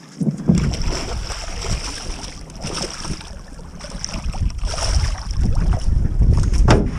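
Wind buffeting the camera microphone on a small boat at sea, a loud low rumble that starts just after the beginning, with water splashing as a hooked fish is hand-lined to the surface and lifted out.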